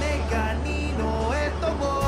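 Background music with held bass notes and a gliding melody line.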